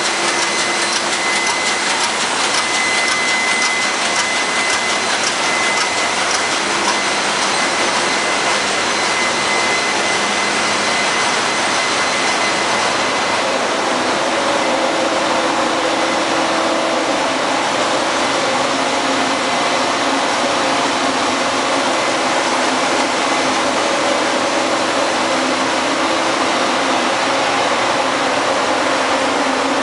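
Loud, steady machinery din of a tanker's engine room, a dense hiss with a thin high whistle. About halfway through the whistle fades and lower steady humming tones come in from the centrifugal purifiers running.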